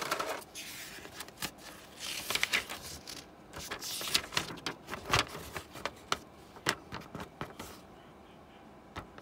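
A paper instruction leaflet being handled and unfolded: crisp rustling and crinkling with sharp little snaps of the sheet, and a light knock about five seconds in. It settles to quiet near the end.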